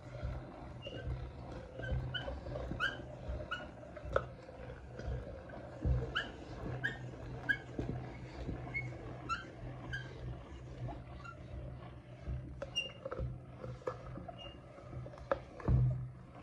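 Hand-cranked metal meat grinder turning and forcing chocolate through its plate: repeated short, high squeaks from the turning crank and auger, with scattered clicks and knocks.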